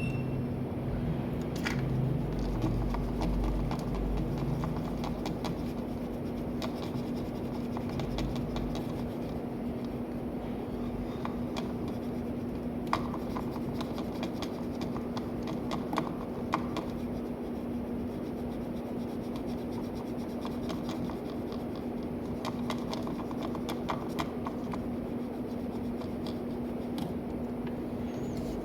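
Steady hum with light scratching and scattered clicks of small tools at a phone-repair bench.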